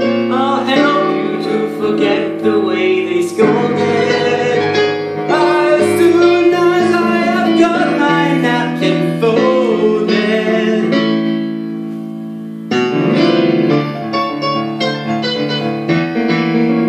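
Show-tune music led by piano, with other instruments, in a stretch without clear lyrics. It thins out and softens briefly, then comes back in fully about thirteen seconds in.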